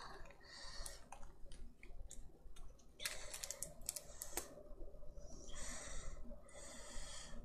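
Close handling noise: scattered light clicks and rustles, a burst of them in the middle, then two short hissy rustles near the end.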